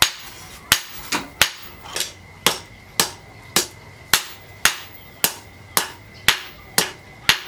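Blacksmith's hand hammer striking steel on an anvil in a steady rhythm, about two sharp ringing blows a second, forging a knife blade.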